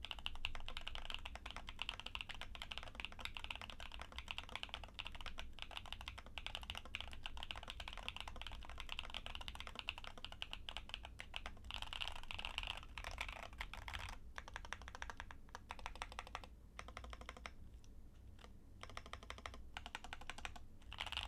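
Keychron Q10 Alice-layout mechanical keyboard being typed on fast, a dense run of keystrokes. The board has a PE foam mod, and its sound is called snappy. Later on the typing thins into more separate strokes with a few short pauses.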